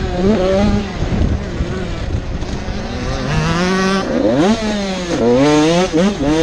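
85cc two-stroke motocross bike engine revving under race load, its pitch climbing and then dropping sharply several times, most steeply about four and five seconds in.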